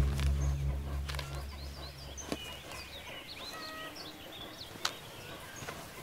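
Small songbirds chirping and twittering, many short rising and falling calls, over a quiet outdoor background. A low music tone fades out in the first second or two, and there are two faint clicks.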